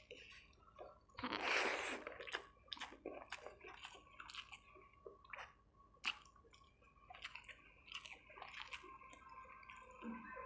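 Close-up chewing of chicken curry and rice: wet, squishy mouth sounds with many small clicks and smacks, and one louder, longer noisy sound about a second in.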